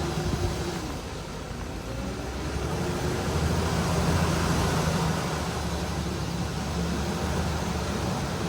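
Tractor engine running steadily, a little louder for a couple of seconds in the middle.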